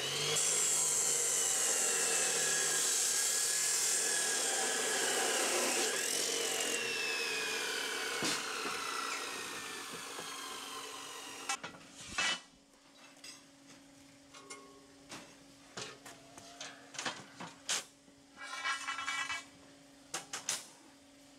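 Abrasive cut-off saw grinding through steel bar for about seven seconds, then its whine falling as the wheel spins down. After that, scattered clanks and knocks of steel bars being handled and set down on a steel plate.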